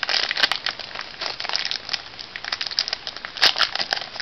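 Foil trading-card booster-pack wrapper crinkling and crackling as it is handled and opened, a dense run of sharp crackles.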